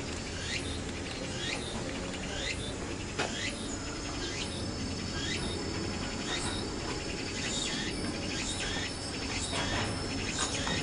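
Repeated short chirps, each falling in pitch, about two a second, over a steady low hum. A thin, steady high tone joins about four seconds in.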